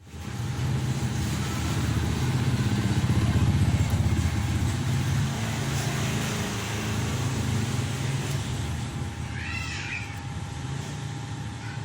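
A motor vehicle engine, motorcycle-like, running close by, growing louder in the first few seconds and then slowly fading. A few short, high bird chirps come near the end.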